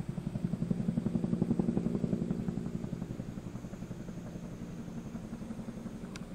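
Helicopter passing overhead, its rotor making a fast, even throbbing that is loudest about one and a half seconds in and then slowly fades. A brief click comes near the end.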